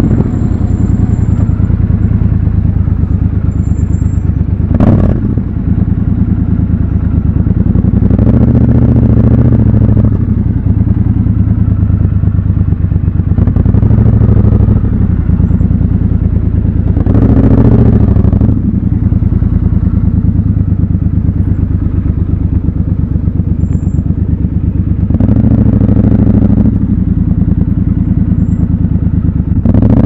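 Triumph Scrambler 1200 XC's 1200 cc parallel-twin engine running at low speed in slow traffic, with several short throttle blips. A single sharp click comes about five seconds in.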